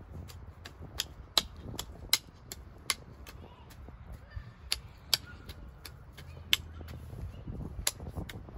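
Long-handled three-tine hand cultivator working garden soil: irregular sharp clicks and scrapes as the metal tines strike and drag through the dirt, about one or two a second.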